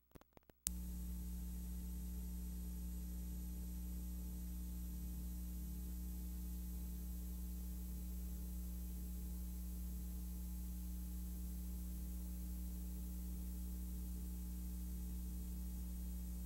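Steady electrical mains hum with hiss, with no other sound over it. It starts abruptly with a click less than a second in, after a few faint clicks.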